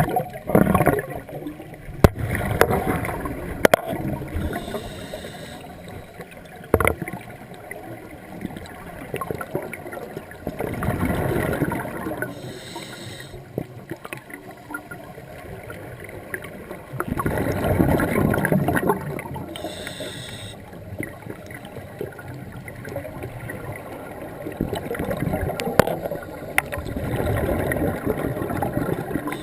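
Scuba diver breathing through a regulator underwater: a short hiss on each inhale, then a longer bubbling rush as the exhaled air leaves the regulator. The cycle repeats about every seven or eight seconds, with scattered small clicks.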